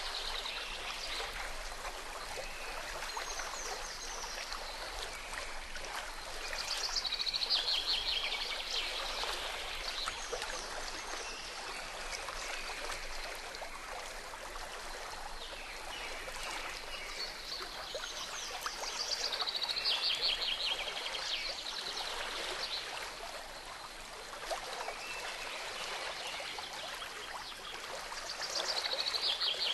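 Steady flowing stream water with birds singing over it: short trilled phrases several times.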